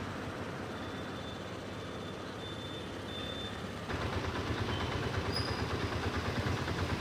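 Street traffic noise, then about four seconds in a louder engine idling with a steady rapid pulse.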